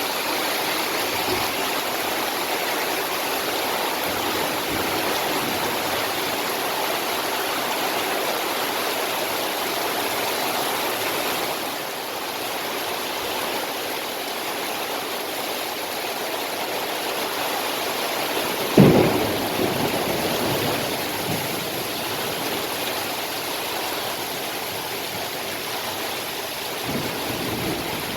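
Heavy rain coming down in a steady rush of water. A single sharp thump sounds about two-thirds of the way through.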